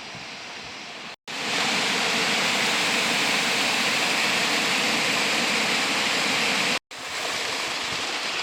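Waterfall rushing: a steady, even noise of falling water. It drops out twice in brief silent gaps, and is loudest in the middle stretch between them.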